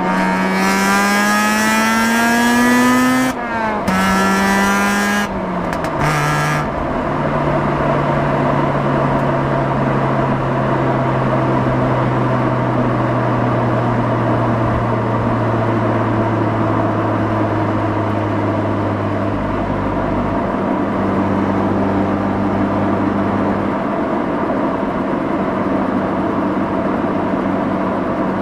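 Mazda RX-8's twin-rotor rotary engine, heard from the rear bumper, accelerating hard: the pitch climbs, breaks at an upshift about three seconds in, and climbs again. After another shift about six seconds in it settles into a steady cruise, the note falling slowly.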